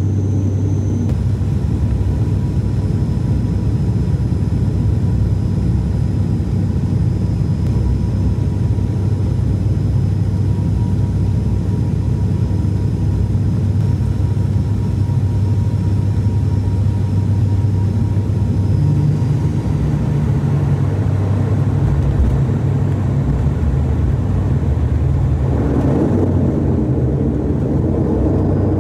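Cabin noise of an ATR 72-600 turboprop in flight: a loud, steady low drone from its propellers and engines. About two-thirds of the way through a slightly higher hum joins in, and near the end the rush grows fuller.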